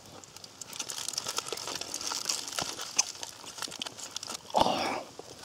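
A person chewing a mouthful of grilled beef close to the microphone: a dense run of small wet clicks and smacks, with one short loud breath near the end.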